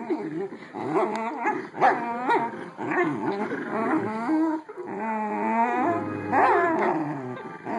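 Two dachshunds vocalizing while tugging on a plush toy: a near-continuous run of whines and play growls that rise and fall in pitch, with a louder, longer held whine about five seconds in.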